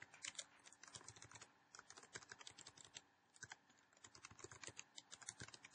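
Faint computer keyboard typing: quick, irregular keystroke clicks, with a short pause about three seconds in.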